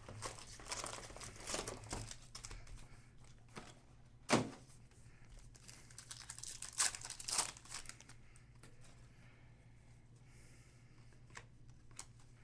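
Crinkling and rustling of plastic packaging as sports trading cards are handled, in scattered bursts, with a sharp click a little over four seconds in.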